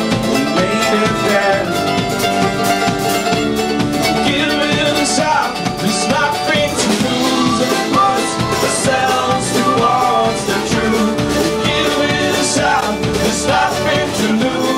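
Live acoustic folk music from a string band, with banjo and mandolin playing together.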